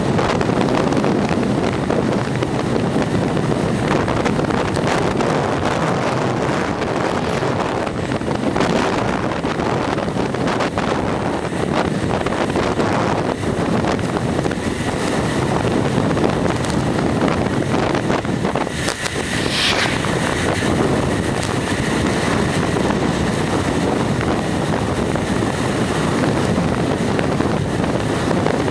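Steady wind rushing over the microphone of a camera moving along at cycling pace, mixed with rolling road noise. A brief higher-pitched sound comes through about two-thirds of the way in.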